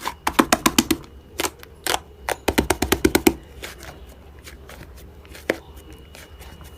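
Slime being pressed and worked by hand, popping air pockets with sharp, crisp clicks: a quick run of clicks about half a second in, another around two and a half to three seconds, and scattered single pops.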